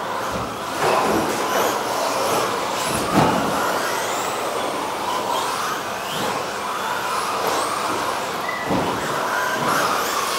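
Several 13.5-turn brushless electric RC stadium trucks racing on a carpet track, their motor whines rising and falling as they speed up and slow down. A few sharp knocks come through, near the start, about three seconds in and near the end.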